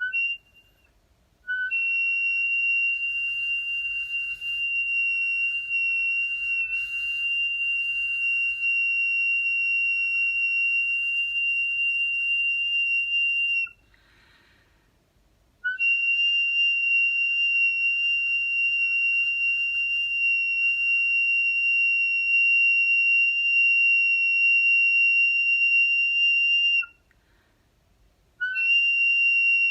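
Handmade flute blown in long, steady, high-pitched notes held on one pitch. There is a brief note at the start, then two notes of about eleven seconds each with a short breathy sound between them, and a third note begins near the end.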